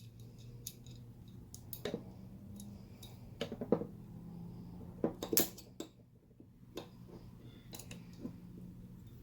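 Small metal clicks and taps as a pin punch and pistol slide parts are handled and lined up, with a few sharper clinks about two, three and a half, and five seconds in. A faint steady hum runs underneath.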